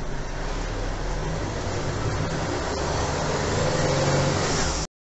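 Engine and road noise heard from inside a moving vehicle, steady and getting a little louder near the end, then cutting off suddenly.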